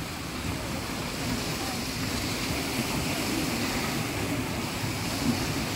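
Steady rushing and churning of water as amusement-ride boats on rotating arms plough around a pool, throwing up wake.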